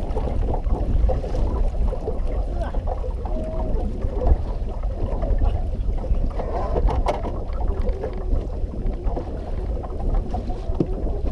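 Wind rumbling on the microphone with water lapping and splashing around a small fishing boat, and a sharp knock about seven seconds in.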